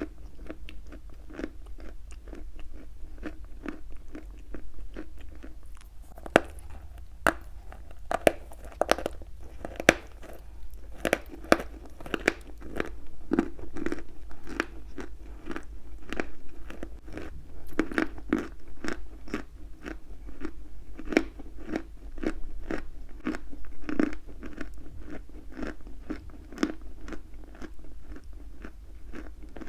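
Close-miked chewing of chalk: dense, crisp crunching, with a few loud sharp snaps of biting between about six and eleven seconds in, then steady rhythmic chewing crunches.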